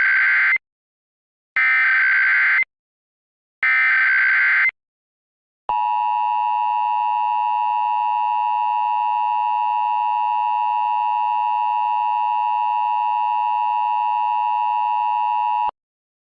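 Emergency Alert System signal: three one-second bursts of the SAME digital header's warbling data tones, then the two-tone EAS attention signal held steady for about ten seconds before cutting off abruptly. This is the sequence that marks the start of an emergency broadcast message.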